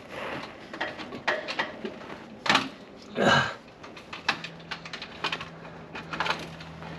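Light clicks and knocks of hands working a spark plug lead and boot, with one louder brief sound about three seconds in and a faint steady hum from about four seconds on.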